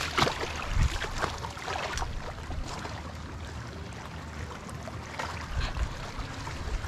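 Wind and water noise around a small fishing boat: a steady low rumble and hiss, with a few short knocks in the first two seconds.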